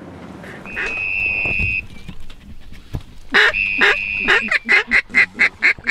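Duck call blown at passing ducks. A long held note comes about a second in. Later there is a loud quack and a quick run of quacks, about five a second, in the mallard hail-and-greeting style.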